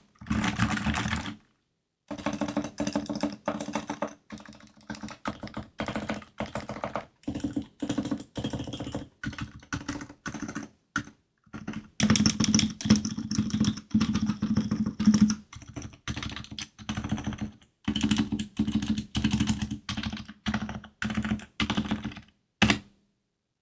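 Typing on a Realforce R2 keyboard with stock 45 g Topre switches: quick runs of keystrokes in bursts with short pauses, stopping about a second before the end.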